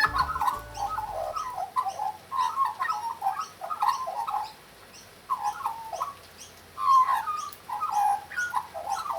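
Birds calling: a chorus of short, repeated calls, some rising or falling in pitch, with a brief lull about halfway through. Background music fades out in the first second or so.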